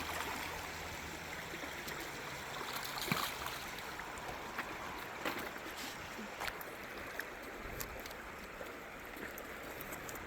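River water running steadily, with a few scattered faint clicks.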